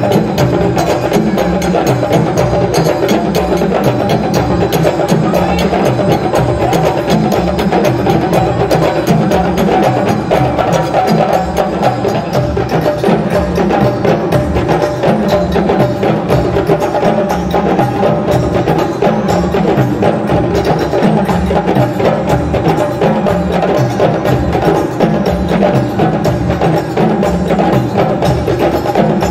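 West African drum ensemble led by djembes, playing a dense, steady dance rhythm.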